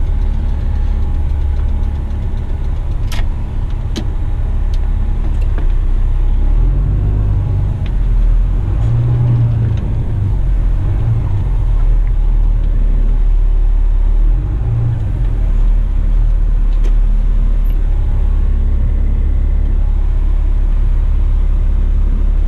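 Heavy rigid truck's diesel engine running at low revs while reversing slowly, the revs rising briefly a few times in the middle. There are a couple of sharp clicks early on.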